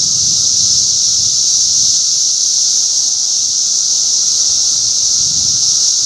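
Loud, unbroken chorus of periodical cicadas: a steady high-pitched drone with a fainter lower hum beneath it.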